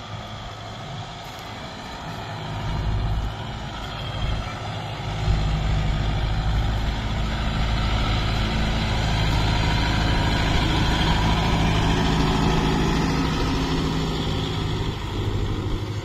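Kubota MU5002 4WD tractor's diesel engine running steadily under load as it pulls a cultivator through dry soil. It grows louder from about five seconds in as it comes close and passes, then eases off near the end as it pulls away.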